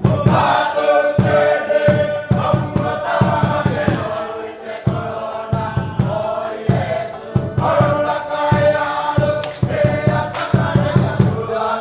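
Music: a group of voices singing together over a regular low beat.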